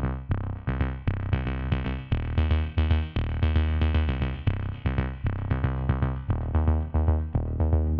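Background music: short pitched notes repeating in a steady rhythm, about three a second, over a deep bass line.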